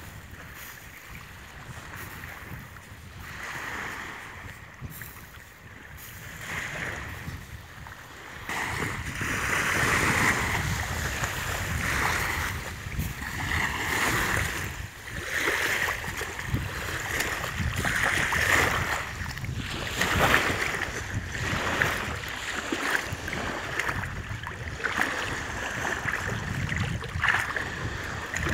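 Wind buffeting the microphone over small waves washing and lapping in shallow water, in surges that swell and fade, louder from about a third of the way in.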